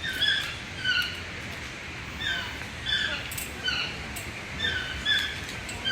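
An animal's short, squeaky calls, about eight in all, mostly in quick pairs, over a steady background hiss.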